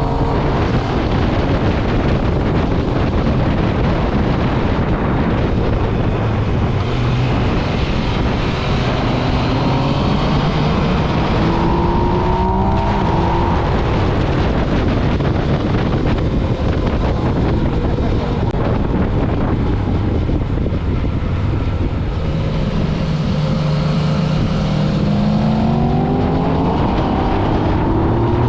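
Motorcycle engine under way over steady wind rush, its pitch rising as it accelerates about twelve seconds in and again through the last few seconds.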